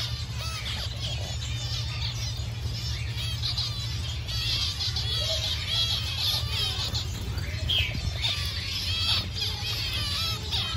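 A cageful of zebra finches calling over one another: many short calls and snatches of song overlapping without pause. A steady low hum runs underneath.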